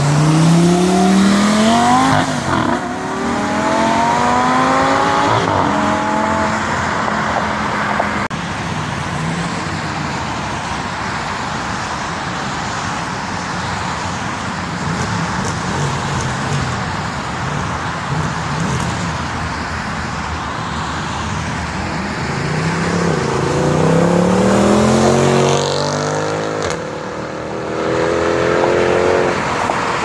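Audi R8 Spyder pulling away hard, its engine revving up in rising sweeps with short breaks at the gear changes, then fading into steady road traffic noise. Near the end another car accelerates hard, revving up through several gears.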